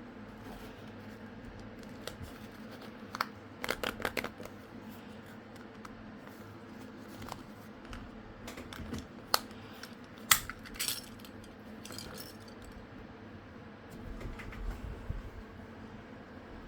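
Unboxing handling noises: scattered clicks, taps and crinkles of packaging and a toy being handled. A cluster of clicks comes about four seconds in and a few sharp ones around ten seconds in, over a steady low hum.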